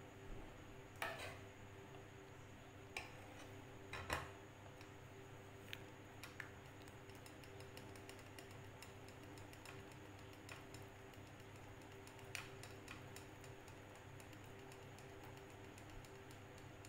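Silicone spatula working thick mango pulp through a fine metal mesh sieve resting on a glass bowl: faint scattered ticks and scrapes, with a couple of louder clicks about one and four seconds in, over a steady low hum.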